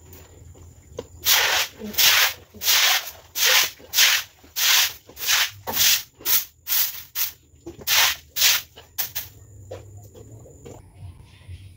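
Brush scrubbing a wet pen floor in quick back-and-forth strokes, about two a second, while the floor is disinfected; the scrubbing stops about nine seconds in.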